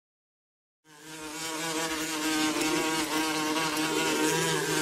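Sound effect of a fly buzzing: a steady, slightly wavering drone that fades in about a second in.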